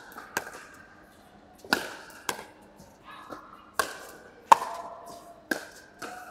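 Pickleball rally: paddles hitting the plastic ball, about seven sharp pops spaced roughly a second apart, each with a short echo from the large hall.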